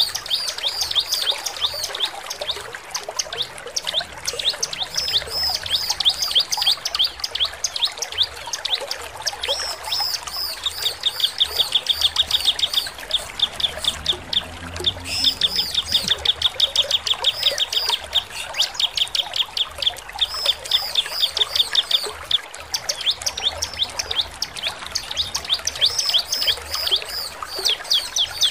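Bar-winged prinia (ciblek) singing non-stop: rapid, high, sharp chirping notes, broken twice near the middle by fast, even trills.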